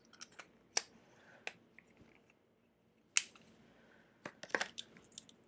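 Small sharp plastic clicks and snaps as a micro SD card is worked out of its clear plastic case. The loudest snap comes about three seconds in, with a quick run of clicks after it.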